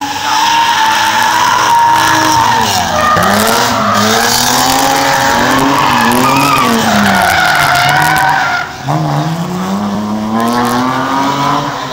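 Rally car driven hard past spectators: the engine revs high, its pitch rising and falling with throttle and gear changes, with tyres squealing as it slides. Nearly nine seconds in the note dips sharply, then climbs steadily again.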